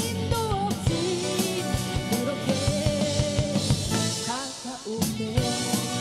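Live rock band performing: a woman sings a melody into a microphone over electric bass, electric guitar and a drum kit. The bass and drums drop away for about a second just after four seconds in, then the full band comes back in.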